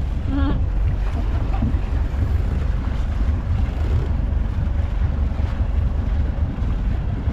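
Wind buffeting the microphone, a steady low rumble.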